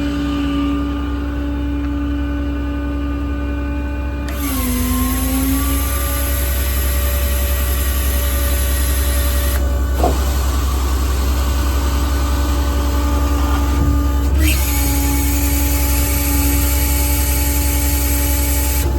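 The truck's 6.7 Cummins diesel running steadily while its hydraulic equipment is worked. About four seconds in, the engine note sags as load comes on and a loud hiss starts. The hiss drops away around ten seconds in and comes back a few seconds later.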